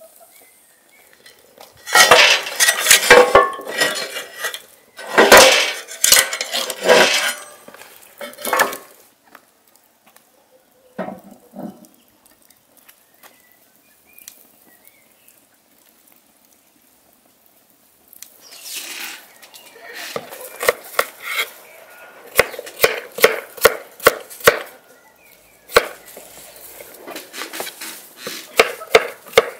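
A loud bout of kitchen clattering and knocking. Later comes a kitchen knife chopping vegetables on a wooden cutting board, with quick, regular strokes about three or four a second.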